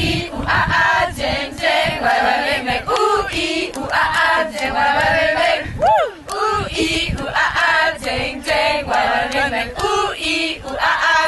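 A group of young women singing a chant together, voices only, with no instruments.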